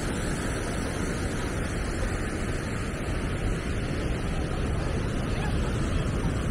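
Steady rush of surf on a sandy beach mixed with wind buffeting the microphone.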